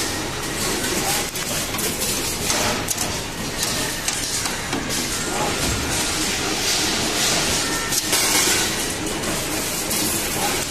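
2D stainless steel wire bending and butt-welding machine running as it feeds and bends wire: a steady mechanical noise with hissing that swells twice and a few sharp clicks.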